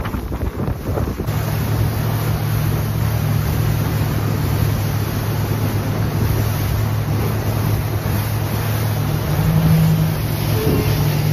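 Gusty wind on the microphone for about a second, then a boat's motor running with a steady low hum at low speed, over wind and water noise.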